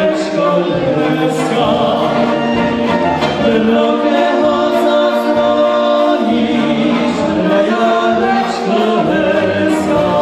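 Czech-style brass band playing a song through the PA, with tubas on the bass line, while two male singers sing into handheld microphones.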